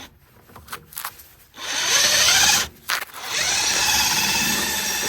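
Handheld power tool run twice, a short burst and then a longer one, each spinning up in pitch at the start, as parts are fastened during a CV axle job.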